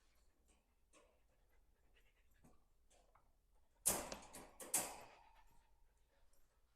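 Metal dog crate clanking twice, about four and five seconds in, the second clank leaving a short metallic ring.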